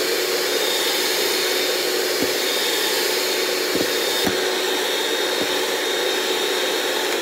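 Electric mixer running at high speed, whipping egg whites toward stiff peaks in a stainless steel bowl: a loud, steady motor whir that starts suddenly, with a few light knocks against the bowl.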